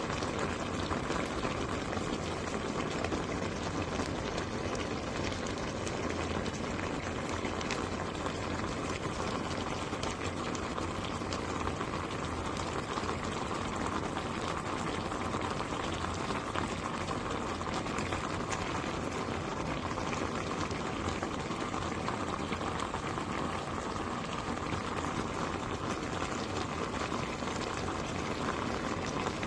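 Kimchi stew (kimchi jjigae) bubbling at a steady boil in a pot, a constant dense crackle of bursting bubbles.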